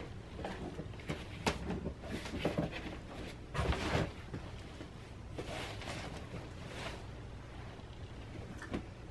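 Handling noises from an AmazonBasics portable photo studio box being set up: a few short scuffs and knocks against its padded fabric panels, loudest about four seconds in.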